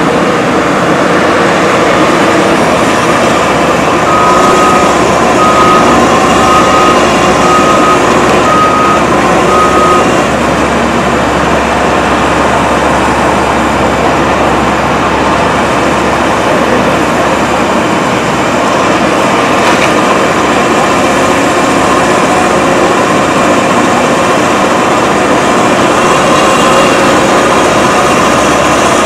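Caterpillar excavator's diesel engine running steadily under load as it works its boom and bucket. From about four seconds in, a reversing alarm beeps six times, about once a second.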